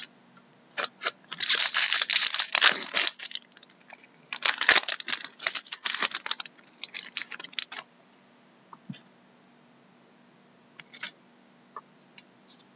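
Trading cards and a foil pack wrapper being handled: two spells of dense crackling and rustling in the first eight seconds, then a few light clicks.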